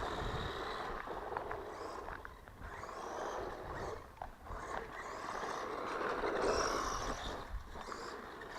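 Small 1/12-scale electric RC car driving about, its motor whine and tyre noise swelling and fading several times as it speeds up, passes and moves away.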